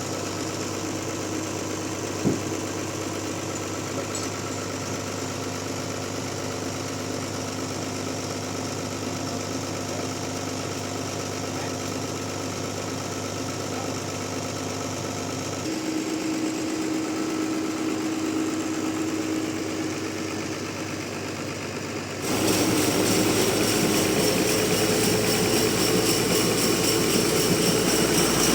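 Sawmill machinery running steadily, with a sharp click about two seconds in. About 22 seconds in, the sound suddenly turns louder and fuller.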